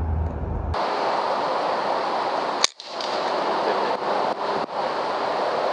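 A single PCP air rifle shot, one sharp crack about two and a half seconds in, over a steady hiss.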